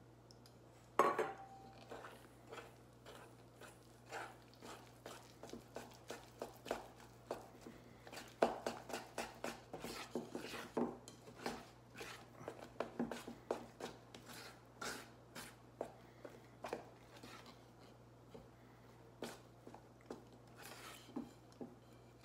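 A spoon clinking and scraping against a stainless steel mixing bowl while stirring a thick white mixture, in quick, irregular strokes. There is a louder clank about a second in.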